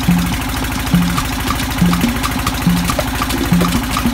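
A boat's engine running steadily, with a low, evenly pulsing drone. From the start, a background music track comes in over it: a short low note repeats a little faster than once a second, with light ticks between.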